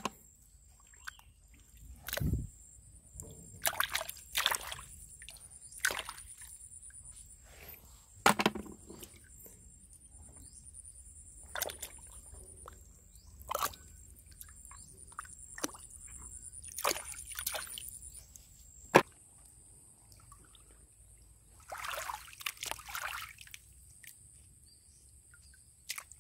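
Hands sloshing and splashing in shallow muddy water while groping in the riverbed mud for small freshwater clams, in scattered short splashes with quiet gaps between, and one sharp click about two-thirds of the way in.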